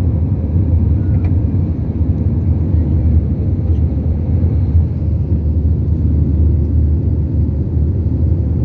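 Airliner cabin noise during the climb after takeoff: a steady, loud low rumble of the jet engines and rushing air.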